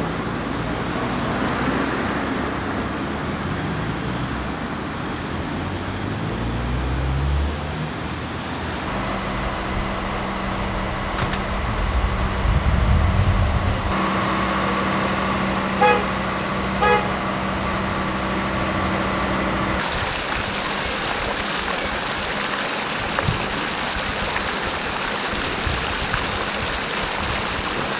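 Street traffic with cars driving past, one engine rising and falling in pitch. Then the steady drone of a heavy truck's engine, with two short beeps about a second apart. From about two-thirds of the way in, the steady splashing hiss of fountain water jets.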